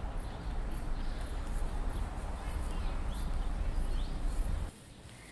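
Birds chirping over a low, steady rumble that cuts off abruptly near the end.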